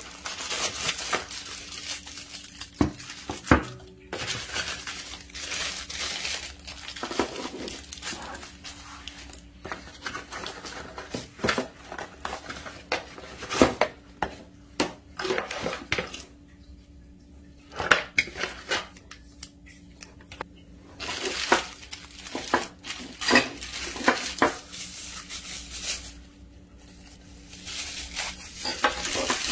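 Packaging being handled: plastic bags rustling and crinkling and a cardboard box being opened, broken by sharp clicks and knocks of small items set down on a hard table, with a few short pauses.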